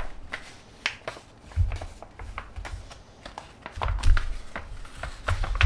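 Close handling noises: scattered clicks, scrapes and light crinkling, with several low thumps about a second and a half in, around four seconds in, and near the end.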